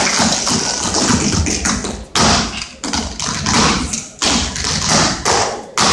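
Tap shoes striking a stage floor in quick rhythmic runs of taps, with several sharp, louder stamps in the second half.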